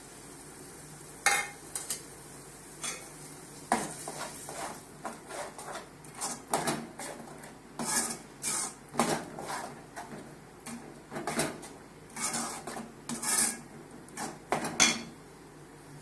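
A steel spoon scraping and clinking against the sides and bottom of an aluminium pot while stirring a thick masala paste, in irregular strokes that start about a second in and stop shortly before the end.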